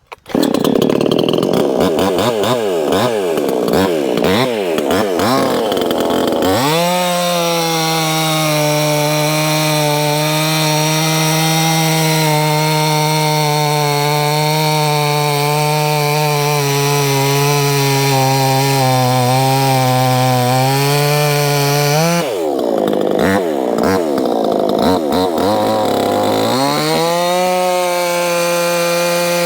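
Proyama 68cc two-stroke chainsaw starting up just after the opening, then revving unevenly for several seconds. It is then held at full throttle through an oak log, its pitch sagging slightly under the load. About two-thirds of the way in it drops back, revs unevenly, and climbs to full throttle again near the end.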